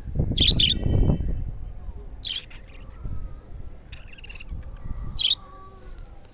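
Budgerigars chirping in short, sharp, high calls, four or five of them spread across a few seconds. A low rumble, loudest in the first second or so, runs underneath.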